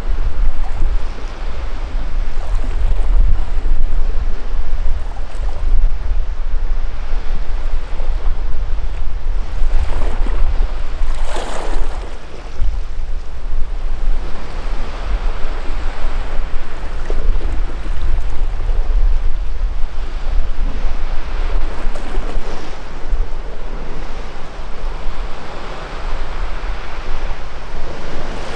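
Sea waves washing against a rocky shore, with wind rumbling on the microphone; one louder wash of water about eleven seconds in.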